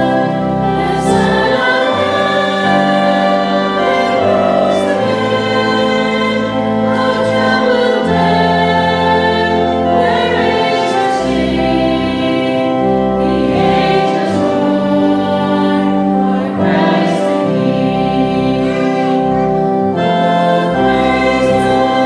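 Two women singing a hymn together into a microphone over sustained instrumental accompaniment, the bass notes changing about every two seconds.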